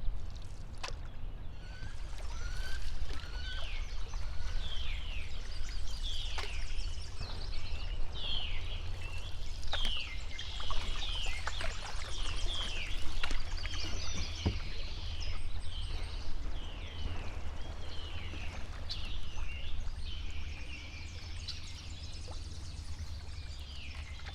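Birds chirping over and over in short falling notes, over water sounds from a canoe paddle, a few sharp knocks and a steady low rumble of wind on the microphone.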